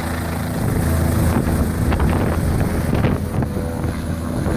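Bell 407 helicopter flying overhead, its main rotor and turbine running steadily, with wind noise on the microphone.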